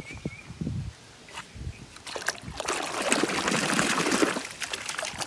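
A few light knocks at the start, then water splashing and churning for about two and a half seconds as a small toy truck is swished through pond water to wash the mud off.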